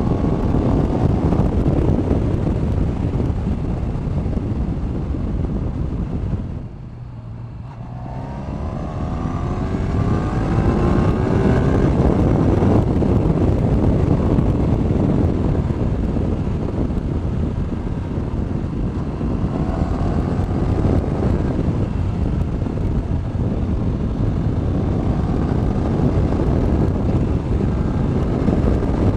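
2016 Honda VFR1200X Crosstourer's 1200cc V4 engine pulling the bike along a road over steady wind and road noise, its note climbing as the throttle is rolled on. About seven seconds in the sound drops away briefly, then the engine note rises again, and once more about twenty seconds in.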